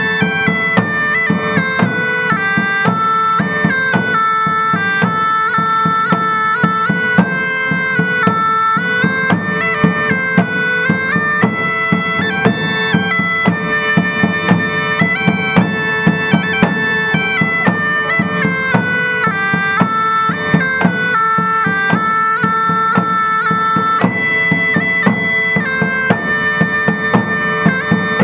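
A medieval-style bagpipe plays a tune over its steady drone, with a drum beating a regular rhythm underneath.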